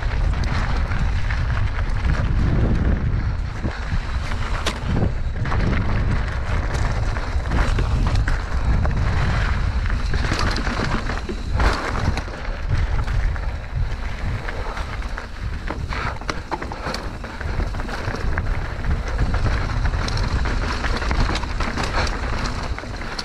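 Mountain bike riding over a rough dirt-and-rock trail, with wind buffeting the camera's microphone as a steady low rumble. Many short knocks and rattles from the tyres and bike come over the rough ground.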